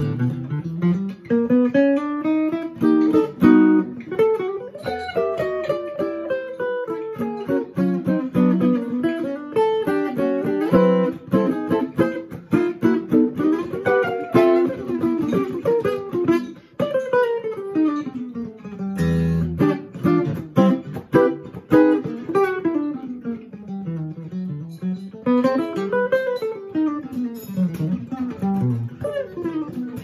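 Solo archtop guitar playing a jazz tune, mostly quick single-note runs with a few full chords, a strong one about two-thirds through.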